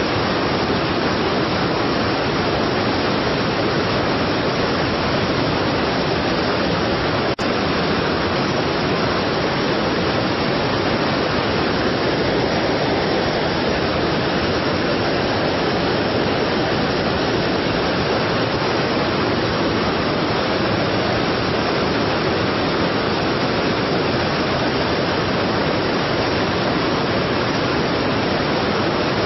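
A strong waterfall rushing steadily, a full, even roar of falling water. About seven seconds in there is one brief click with a momentary drop in level.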